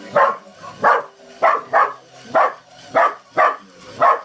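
A dog barking repeatedly, about eight barks roughly half a second apart, at a toy train.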